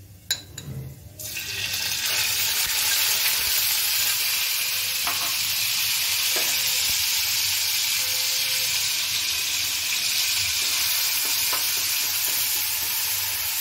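Onion, garlic and ginger paste dropped into hot oil with cumin in a frying pan: a loud, steady sizzle that starts suddenly about a second in, after a few light clicks of a spoon scraping the paste out of a glass bowl. A ladle stirring it knocks lightly against the pan now and then.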